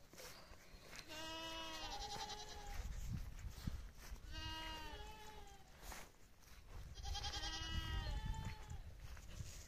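Goat bleating three times, each a long wavering call about a second long, some three seconds apart.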